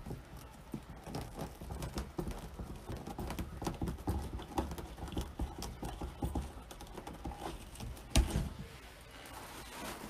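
Irregular light clicks, taps and rustling of hands handling and rolling stiff deco mesh on a cutting mat, with one loud thump about eight seconds in.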